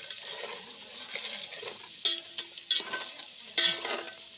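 A long metal spatula stirs and scrapes inside a large aluminium pot of food frying in oil, over a steady sizzle. In the second half, three sharper scrapes or knocks against the pot set it ringing briefly.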